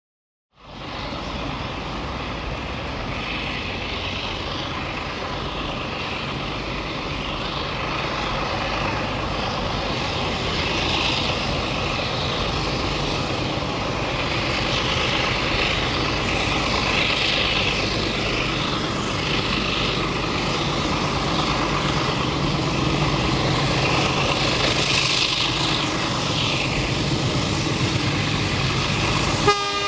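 Alco diesel locomotives 4490 and 4520 hauling a passenger train toward the listener, their engines a steady low drone that grows gradually louder. A horn blast begins right at the end.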